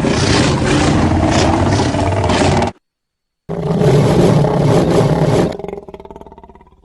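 Sharptooth's tyrannosaur roar sound effect, heard twice: a long, deep roar that cuts off suddenly a little under three seconds in, then after a brief silence a second roar that dies away near the end.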